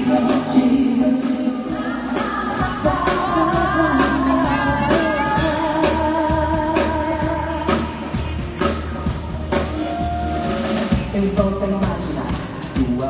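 Pop vocal group of women singing into microphones over a live band, with drums keeping a steady beat and bass underneath, amplified through the hall's PA during a sound check.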